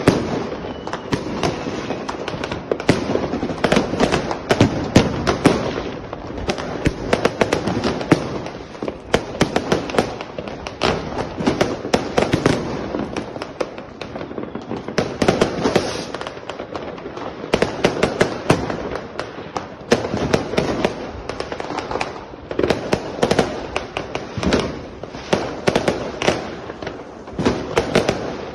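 Many aerial fireworks going off at once, bursting overhead and further off. It makes a near-continuous, irregular barrage of bangs and crackles with no real pause.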